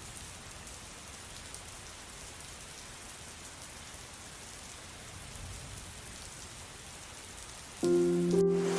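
Steady rain falling, an even hiss. Near the end, held music notes come in over it.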